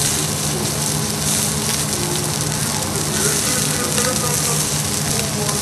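A thick steak sizzling and crackling loudly as it sears in a very hot frying pan, a steady hiss full of small pops, over a steady low hum.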